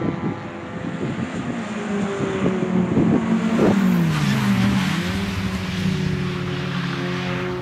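Several small racing hatchbacks' four-cylinder engines running hard through a corner. One car passes close about four seconds in, and its engine note dips and climbs again as it goes by.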